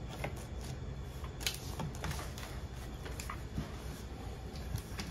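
Light handling noise as a dishwasher's side cover and frame are worked by hand: a few faint, scattered clicks and taps of plastic and metal parts.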